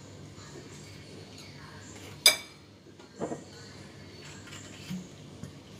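Kitchenware being handled: a sharp, ringing clink about two seconds in, then a duller knock a second later and a soft thump near the end.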